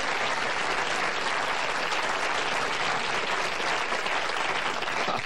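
Studio audience applauding steadily, stopping near the end.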